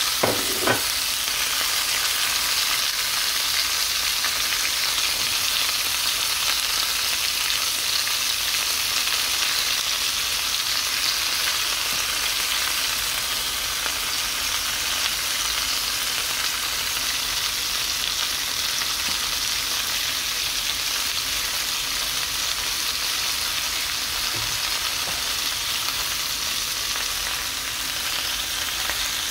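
Sliced bell peppers and onions sizzling steadily in oil in a stainless steel skillet, with two short knocks just after the start.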